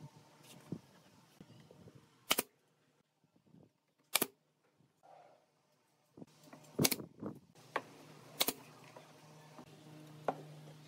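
Pneumatic brad nailer firing as a pine panel is nailed on, four loud sharp shots about two seconds apart. There are a few lighter knocks of wood between the shots and a low steady hum underneath.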